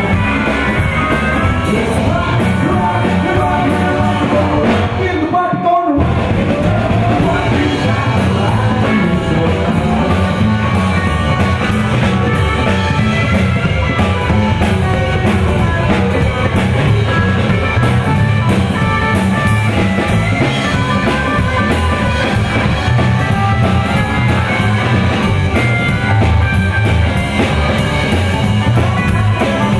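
Rockabilly trio playing live: electric guitar, upright bass and drum kit, with a sung lead vocal over the band.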